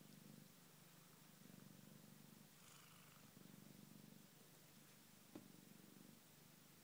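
Domestic cat purring close up: a faint, low rumble that swells and eases in waves a second or two long with each breath. One short click is heard late on.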